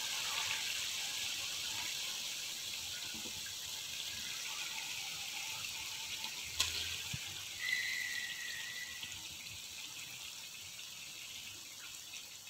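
Masala frying in a karahi as raw fish pieces are laid into it: a steady sizzling hiss that slowly fades. A sharp click comes about six and a half seconds in, and a short high tone about a second later.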